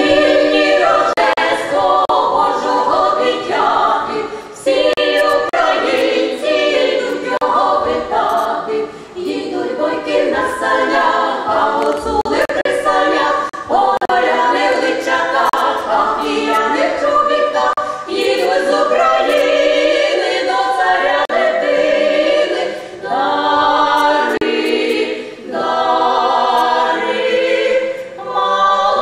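A women's vocal ensemble of five singing a Ukrainian Christmas carol (koliadka) a cappella. The singing starts sharply at the outset and runs in phrases broken by short pauses for breath.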